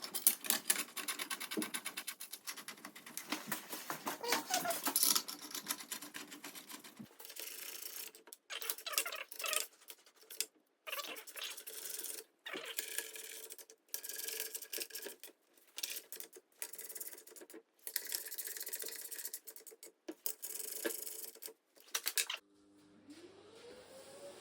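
Rapid ratcheting clicks and rattling of screws being fastened into the forge's steel box, in short stretches broken by sudden silences. Near the end a small motor starts and whines up to a steady pitch.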